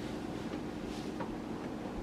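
Faint handling of power-supply cables inside a PC case: a soft brushing sound about a second in and a light tick just after, over a steady low hum.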